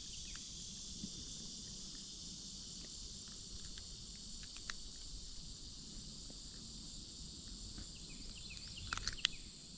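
Steady, high-pitched insect chorus of crickets or similar singing insects, with a few faint clicks and taps, a small cluster of them about nine seconds in.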